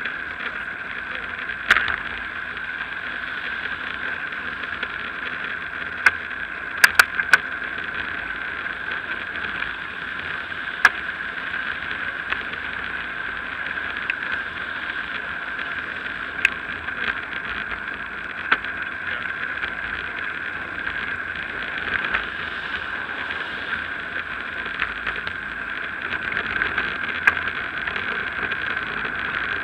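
Steady wind and road noise picked up by an action camera riding on a moving bicycle, broken by scattered sharp clicks, with a short cluster of them about six to seven seconds in.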